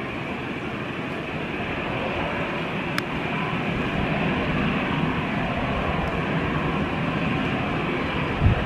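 Airbus A320-family airliner's twin jet engines running at taxi power: a steady rumble and hiss that grows slightly louder as the aircraft rolls closer. A sharp click about three seconds in and a short low thump near the end.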